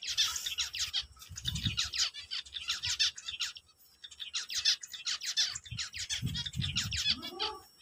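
A group of caged zebra finches calling: a busy, overlapping chatter of short, quickly falling calls, several a second, with a couple of brief low rumbles underneath.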